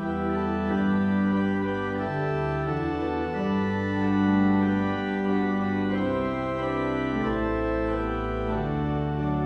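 Pipe organ playing slow, sustained chords over a low bass line, the notes changing about every second.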